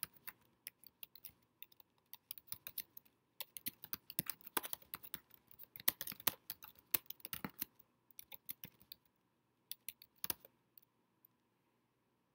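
Typing on a computer keyboard: runs of quick keystrokes that thin out and stop a couple of seconds before the end.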